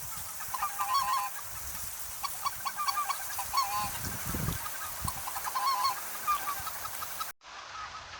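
A flock of greater white-fronted geese (specklebellies) calling: many short, high, repeated yelping notes overlapping throughout, cut off abruptly by an edit near the end.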